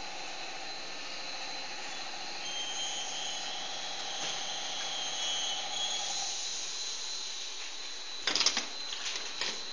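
Sandwich panel roll forming machine running, steel sheet feeding through its roller stations with a steady mechanical hum and a high steady tone. About eight seconds in, a short burst of loud metallic clattering knocks, followed by scattered clicks.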